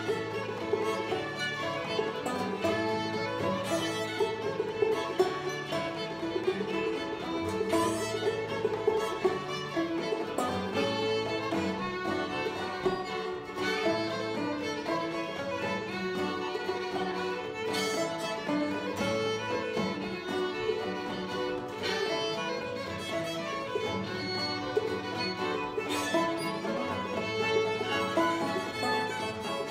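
Old-time string band playing an instrumental fiddle tune: two fiddles carrying the melody over banjo and acoustic guitar, with no singing.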